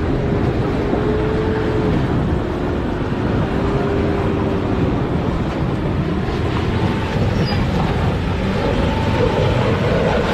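Vehicle engine running steadily during the recovery of a car stuck in a river. A steady whine sits on top of it and dies away about halfway through.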